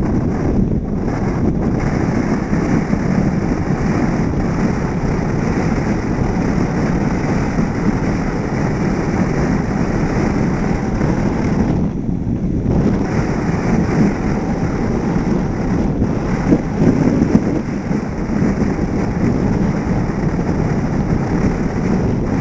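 Wind rushing over the microphone of a camera mounted on the outside of a moving car, mixed with the car's road noise: a loud, steady low rumble that eases for a moment about halfway through.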